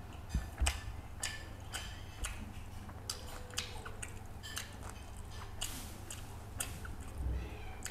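Close-miked chewing of a mouthful of fish curry and rice, with irregular wet mouth clicks and smacks about twice a second.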